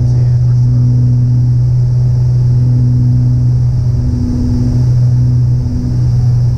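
Steady low drone of a light aircraft's piston engine and propeller on final approach, picked up through the cockpit intercom's audio jack, with a fainter tone above it that fades in and out.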